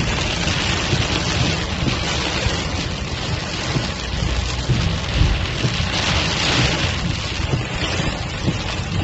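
Heavy rain beating on a car's windscreen and roof, heard from inside the cabin: a dense, steady hiss with a low rumble underneath.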